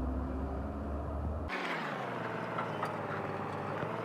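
A vehicle engine running with a low rumble, which cuts off abruptly about a second and a half in, leaving a hissier mechanical background with a few light clicks.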